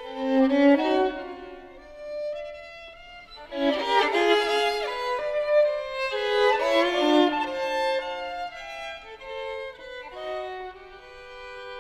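Solo violin playing a contemporary classical piece: loud flurries of quick notes, often with two or more notes sounding at once, easing into quieter held notes near the end.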